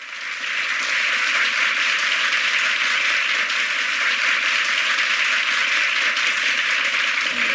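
Studio audience applauding: dense, steady clapping that swells in over the first second.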